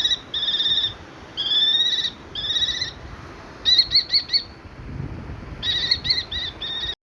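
Common kestrel calling: a series of high, trilled calls about half a second each, then quicker runs of short notes near the middle and toward the end, cutting off suddenly.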